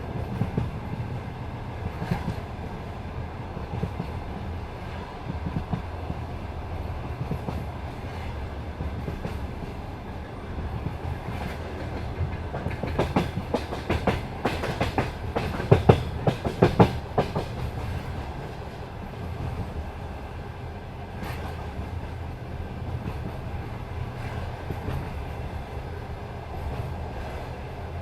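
Passenger train wheels clicking over the rail joints at speed, over a steady low rumble. About halfway through, the clatter turns faster and louder for a few seconds, then settles back to the regular beat.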